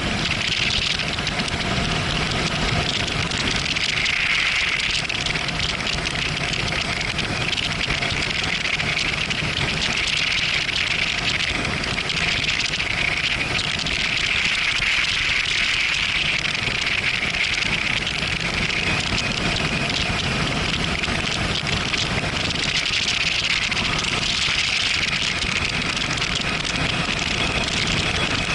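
Yamaha MT-07 Tracer's parallel-twin engine running steadily at cruising speed under a constant rush of wind and road noise.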